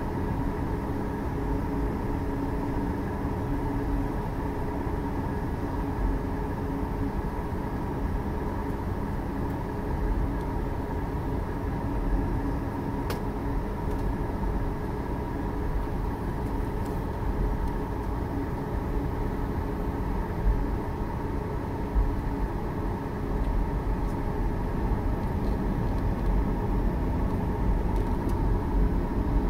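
Jet engines of a McDonnell Douglas MD-11 trijet freighter heard across the airfield during its takeoff roll: a steady whine over a low rumble. The rumble grows louder over the last several seconds as the engines build takeoff thrust.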